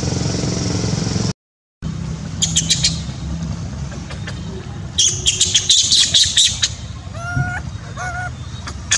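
A steady low rumble that cuts off about a second and a half in, then a short silence. After it come bursts of rapid high rattling clicks and a few short squawking animal calls that rise and fall in pitch, over a low background rumble.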